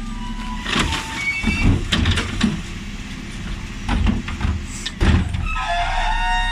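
Dennis Elite 6 bin lorry's engine running steadily while its Terberg OmniDEKA lifter works the wheelie bins, with a series of sharp bangs and clatters about a second in, around two seconds, and at four and five seconds. A high wavering tone comes in near the end.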